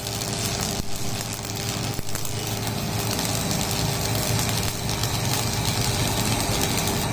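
A motor-driven machine running steadily with a constant hum.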